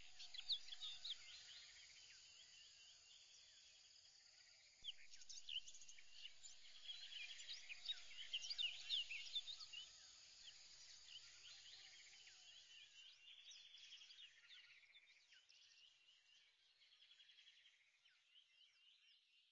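Faint chorus of birds chirping, many short high whistles and glides, with a buzzing insect-like trill. It swells about five seconds in and fades away toward the end.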